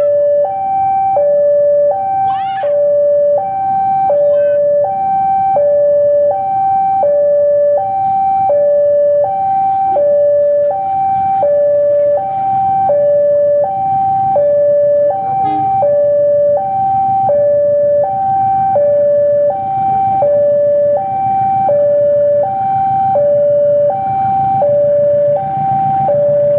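Railway level crossing warning alarm sounding a steady two-tone high-low signal, about one cycle a second, warning that a train is coming. Under it, a diesel locomotive's engine rumble grows louder over the last several seconds.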